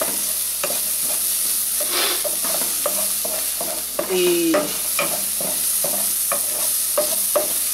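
Chopped onion and garlic sizzling in oil in an aluminium pan while a wooden spoon stirs and scrapes the pan bottom, about two to three scrapes a second. A brief pitched tone comes in about four seconds in.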